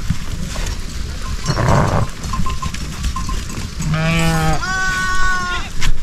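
Sheep bleating in a milling flock: a short rough bleat about a second and a half in, then two longer bleats one after the other near the end.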